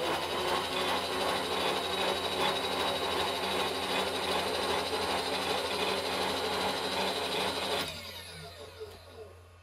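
Milling machine table power feed motor running steadily with a whine as it traverses the table, stopping about eight seconds in and winding down.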